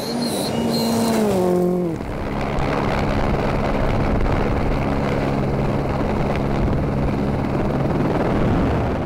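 Rally car engine dropping in pitch over the first two seconds as it comes off the throttle, then a loud, steady rush of noise with a constant low drone.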